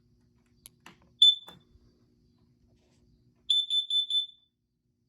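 A smoke alarm under test: a few clicks, then one short shrill beep, then after a pause a quick run of four beeps, about four a second, that stops abruptly.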